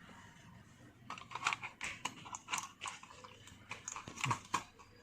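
Typing on a Dell KM3322W wireless keyboard: a run of irregular quick key taps starting about a second in, as the newly set-up keyboard is tried out.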